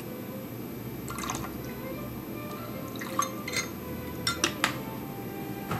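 Soy sauce spooned into a glass measuring cup of broth: liquid dripping and trickling in, with a metal spoon clinking against the glass a few times.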